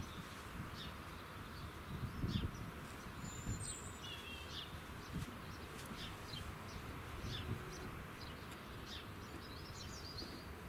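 Small birds chirping in short, scattered calls over a steady low rumble, with gusts of wind buffeting the microphone near the start and about two seconds in.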